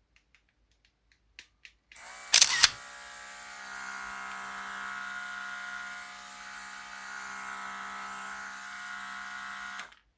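Handheld air-compressor mist sprayer: a few light clicks, then its small motor starts and runs with a steady hum and a hiss of spraying mist. A brief loud burst of hiss comes just after it starts, and it cuts off suddenly near the end.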